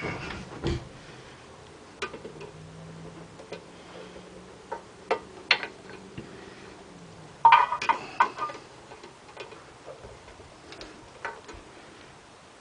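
Irregular metallic clicks and taps of hand tools working the rocker arm fasteners on a small engine's cylinder head, with a louder run of clicks about seven and a half seconds in.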